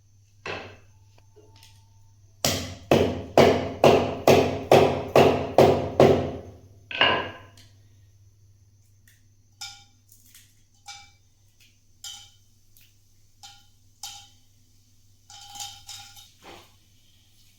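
A run of about ten heavy knocks, roughly two a second, from kitchen utensils being struck while cooking, followed by lighter, spaced taps with a slight metallic ring.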